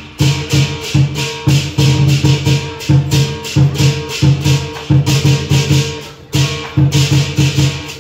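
Lion dance drum and clashing cymbals beating a fast, loud, even rhythm, about two to three strokes a second, with a brief lull about six seconds in.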